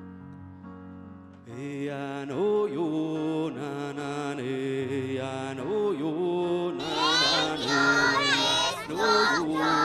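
Music: held instrumental chords, then a song with a singing voice coming in about a second and a half in, growing fuller and louder around seven seconds in.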